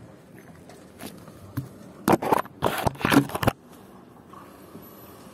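Close handling noise: a cluster of loud rustling scrapes lasting about a second and a half, around the middle, while a spark plug socket on an extension is worked out of the engine by hand.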